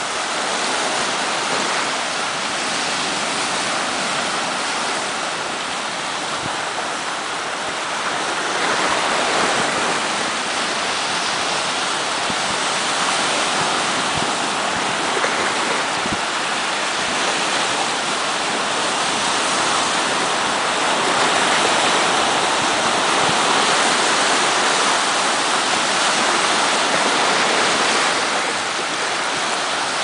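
Caribbean Sea surf washing in over a rocky shore: a steady rush of breaking waves and foaming water pouring around the rocks, swelling a little louder about a third of the way in and again later on.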